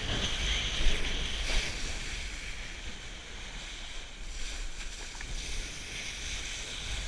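Steady wind rumble on the microphone over the hiss of a kiteboard planing through choppy water.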